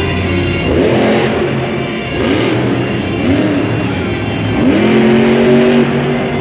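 Megalodon monster truck's supercharged V8 revving hard four times, pitch sweeping up and back down, the last rev held for about a second as the truck rears up onto its back wheels. Arena music plays faintly underneath.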